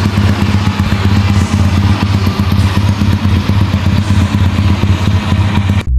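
Daytona 250cc cafe racer motorcycle engine idling steadily through its exhaust, with a rapid even exhaust beat; it cuts off suddenly near the end.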